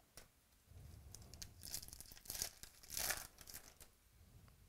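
Trading cards and plastic card holders being handled: a run of short rustles, slides and small clicks, loudest about three seconds in.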